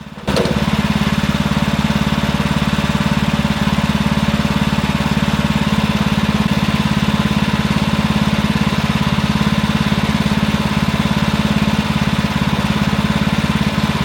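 Gas engine of a portable bandsaw sawmill jumping suddenly to a much louder pitch about a quarter second in, as if throttled up to cutting speed, then running loud and steady.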